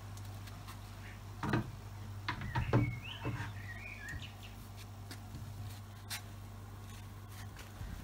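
Hard plastic lid of a pond drum filter housing being set and pressed back into place: a few knocks and clatters over the first few seconds, the loudest about three seconds in. Underneath runs a steady low hum, and a small bird chirps a few times in the middle.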